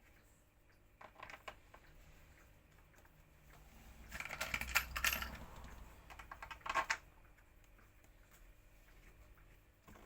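Light clicking and clattering of small hard objects being handled, in bursts: a short one about a second in, a longer, louder run of clatter from about four to five and a half seconds, and a brief one near seven seconds.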